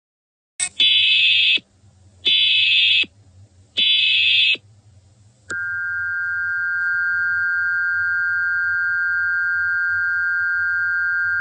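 Emergency Alert System header: three short, harsh bursts of data tones, then, about five seconds in, the steady two-tone EAS attention signal begins and holds. It marks the start of an emergency alert broadcast.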